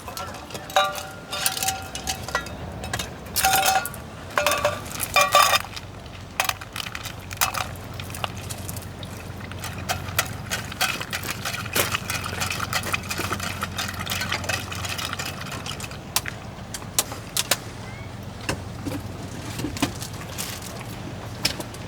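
Clinks and knocks of things being handled, some with a short metallic ring, over a low steady hum.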